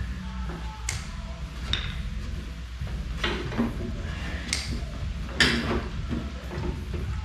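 Scattered metallic clanks and clicks as parts of a go-kart frame are handled and worked loose by hand, the loudest about five seconds in, over a steady low hum.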